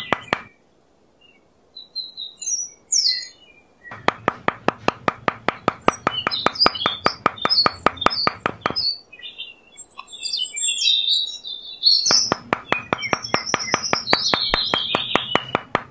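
A small metal hammer tapping rapidly on the top of a thin wooden stick, driving it into sand: two quick runs of several taps a second. Birds chirp throughout.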